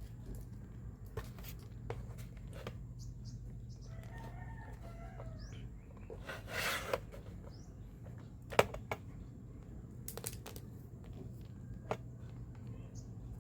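A rooster crowing faintly in the distance about four seconds in, over a steady low hum, with scattered small clicks and taps as a capacitor on the speaker board is checked with a meter.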